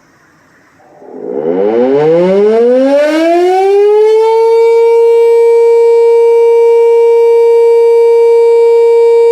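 Electric motor siren starting up about a second in, its pitch climbing steadily for about three seconds and then holding one loud, steady tone with many overtones.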